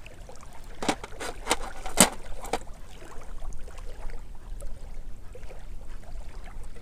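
Small waves lapping at the shoreline, with wind rumbling on the microphone. Four or five sharp clicks in the first two and a half seconds come from fishing gear being handled.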